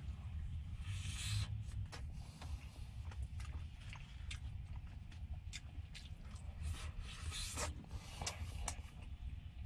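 Eating at close range: a spoon clicking and scraping in a plastic food tray, with chewing, over a steady low hum.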